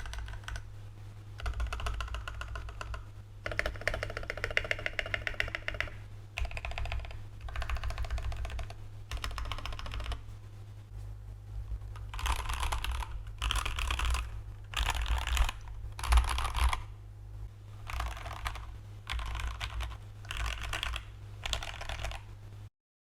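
Typing on a Gammakay TK68 65% mechanical keyboard with stock switches and a silicone case mod: bursts of rapid key clicks, each a second or two long, with short pauses between. The bursts in the second half sound brighter and sharper.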